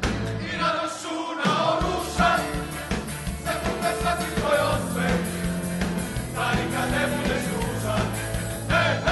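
Live music: a large group of men singing together into microphones over amplified band accompaniment with a steady beat and bass.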